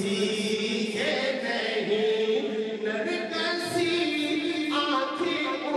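A man singing a naat, the unaccompanied Islamic devotional poem, in long held melodic lines into a microphone.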